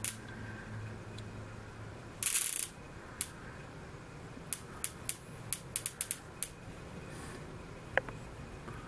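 Electric bug zapper snapping as paper wasps hit its charged grid and are electrocuted: about a dozen sharp, irregular zaps, several in quick succession, with one longer crackle about two seconds in, the loudest.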